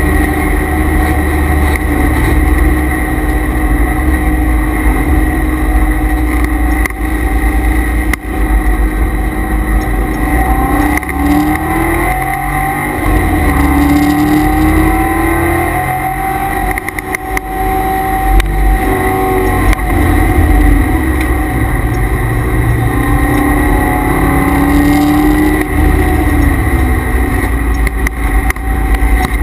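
C5 Corvette Z06's LS6 V8 heard from inside the cabin under hard track driving, its pitch rising and falling several times as the driver accelerates, shifts and brakes. A steady high whine from the transmission and differential coolers runs underneath.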